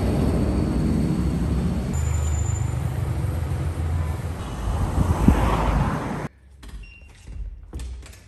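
City street traffic: cars and a bus running past, with one vehicle passing close and louder about five seconds in. The sound then drops off abruptly to a much quieter room with a few small clicks.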